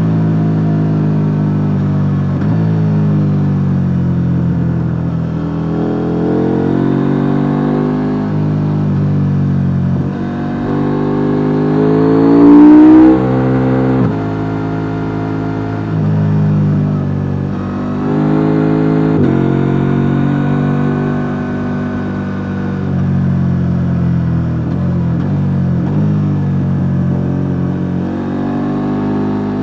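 KTM 890 Duke R's stock-exhaust parallel-twin engine heard on board while riding. The revs climb and fall again and again, breaking off sharply at gear changes and on closing the throttle. The loudest, highest-revving pull comes about halfway through and is cut off abruptly.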